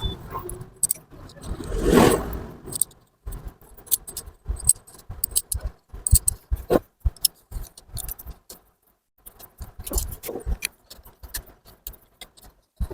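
Metal tools and engine parts clinking and tapping irregularly as they are handled, with a louder rustling swell about two seconds in.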